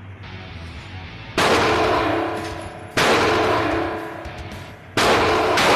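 Three pistol shots from a Smith & Wesson Shield 9mm, about a second and a half to two seconds apart, each cracking sharply and then ringing out in the range's echo. A steady low hum runs underneath.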